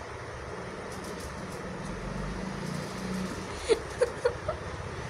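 Puppies play-fighting, one giving four short, high yips in quick succession about three-quarters of the way through, over a steady low background hum.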